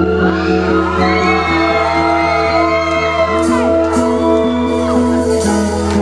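A live band playing sustained chords, with shouts and whoops from the audience riding over the music.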